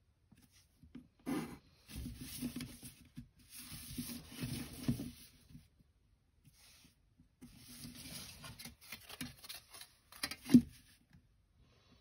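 Clear plastic set squares and a ruler sliding and scraping over drawing paper in several short bursts, with one sharp tap near the end as a set square is put down.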